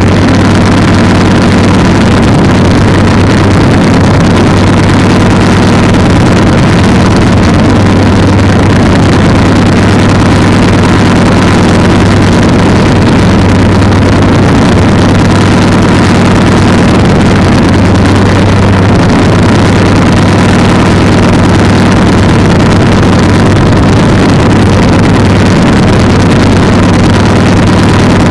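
Polini 190 single-cylinder two-stroke engine running steadily under power, with no change in pitch, over a heavy rush of noise.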